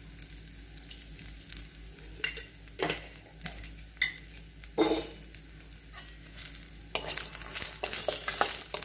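Raw coconut pieces, green chillies and herbs sizzling in oil in a stainless steel kadai, with a steel spoon scraping and clinking against the pan as it is stirred. The stirring is occasional at first and becomes steady and continuous near the end.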